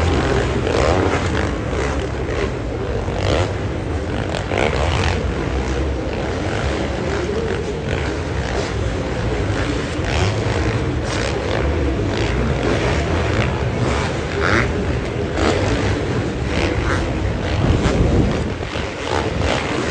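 Supercross dirt-bike engines revving around the stadium track, several bikes at once, their pitch rising and falling as riders go on and off the throttle over a steady rumble.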